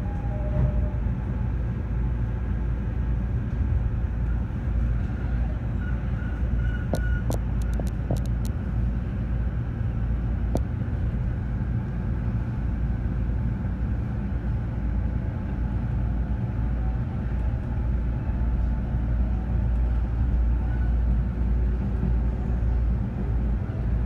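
Inside an E217-series electric commuter train pulling out of a station and gathering speed: a steady low rumble of the car running, with a short run of sharp clicks about seven to eight seconds in.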